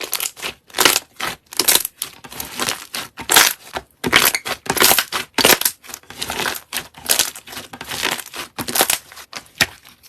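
Slime being squeezed and kneaded by hand, giving a quick, irregular run of crackling, squelching pops as air pockets burst.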